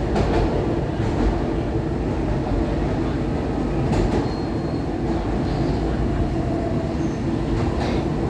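SEPTA Market-Frankford Line Adtranz M4 subway train running through the tunnel and into a station: a steady rumble of wheels and motors with a few sharp rail clicks. A brief high squeal comes just after four seconds in.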